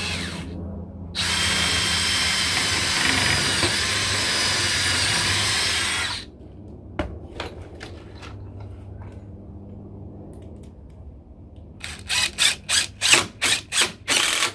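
Cordless DeWalt drill boring through a wooden deck post and a half-inch galvanized conduit pipe, running steadily for about five seconds after a brief first start. Near the end, a screw is driven through the post into the pipe in a series of short spurts of the driver, pinning the conduit so it can't rotate.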